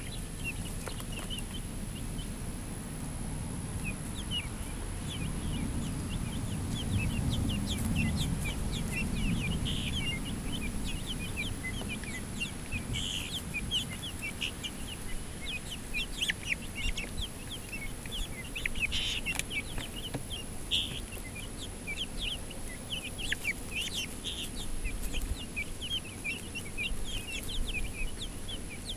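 Young chickens peeping and clucking as they forage, a steady stream of short high cheeps that grows busier about halfway through. A low rumble swells and fades early on.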